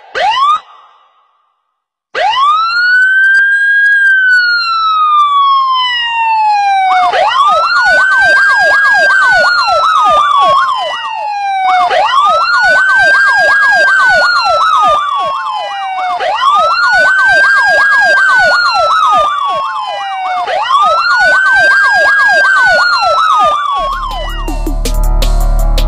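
Two women imitating an ambulance siren with their voices. After a few short rising whoops, a wailing tone rises quickly and sinks slowly, repeating about every four and a half seconds. From about seven seconds in, a fast up-and-down warble runs over it. Electronic music with a beat comes in near the end.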